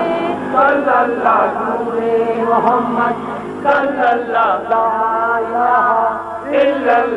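Several villagers chanting a Punjabi folk song together, the voices holding and bending long notes; the chant calls for the doors to open and a baby boy to be given to the house where a birth is awaited.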